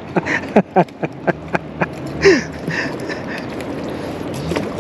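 Fishing reel being cranked to bring in a hooked bluegill: a regular ticking squeak about four times a second. It stops about two seconds in, a brief louder rush follows, then a steady hiss.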